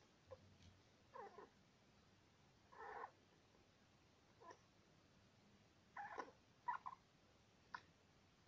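Syrian hamster squeaking in its sleep: a string of short squeaks at uneven intervals, a few seconds apart at first and then closer together. The owner wonders whether the hamster is dreaming; a vet listened to its chest and thought it was okay.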